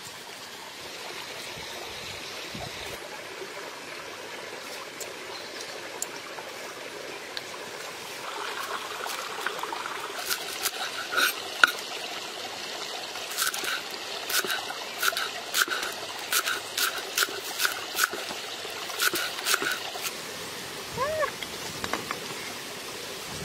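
A knife chopping vegetable stalks on a wooden chopping board: a steady run of sharp knocks, two to three a second, from about ten seconds in until about twenty seconds in. Under it a steady trickle of running water.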